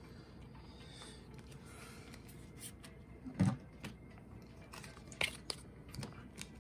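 Trading cards being handled and set down: scattered soft clicks, taps and rustles of card stock, with one louder knock about three and a half seconds in.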